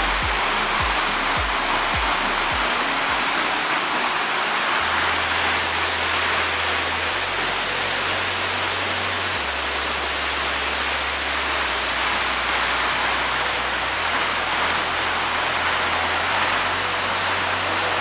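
Waterfall rushing steadily, a constant dense hiss of falling water, with low background music notes changing every few seconds beneath it.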